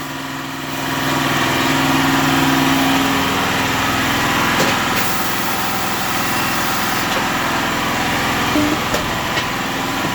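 Mobile tire-service machinery running steadily, an engine-like hum with the machine noise swelling about a second in and a few light clicks and knocks, as a tire is mounted on a new rim.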